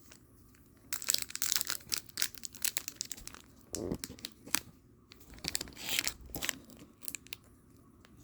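Foil wrapper of a Pokémon booster pack being torn open and crinkled, in crackly rustling spells, with a soft thump about four seconds in.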